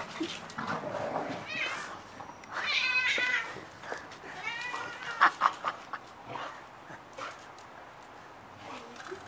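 A domestic cat yowling angrily at a dog that is pestering it: several drawn-out, wavering meows, the longest about three seconds in. A few sharp knocks come about five seconds in.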